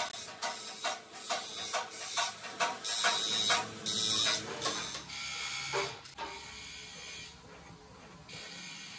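A fast, even run of scraping strokes, about three a second, for the first few seconds, then quieter light scratching as a small hand tool works the inner rubber of a tractor tire.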